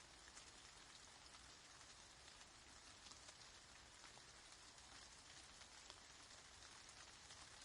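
Steady, quiet rain falling, a dense patter of many small drop impacts.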